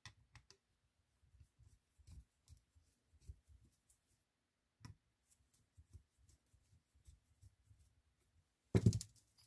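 Faint, scattered clicks and short scrapes of a screwdriver working screws out of a plastic 12-volt mini air compressor housing, with a louder clatter near the end as the parts are handled.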